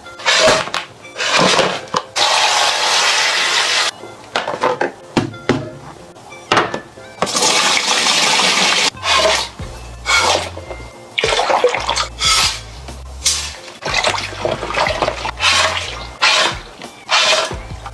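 Water running in two spells of about two seconds each, with short knocks and clatter of kitchen handling between them. A low beat of background music comes in about halfway through.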